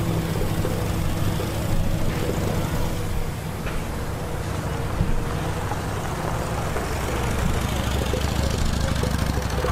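Engines running steadily: a continuous low drone with a held pitched tone over it and a few light clicks.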